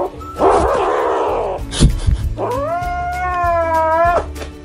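Kitten yowling. A rough, breathy cry comes about half a second in, then a short sharp click, then one long, steady yowl of nearly two seconds that cuts off suddenly.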